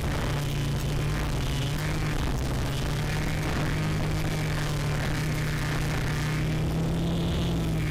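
Quadcopter motors and propellers humming steadily while the drone hovers low, heard from its onboard camera.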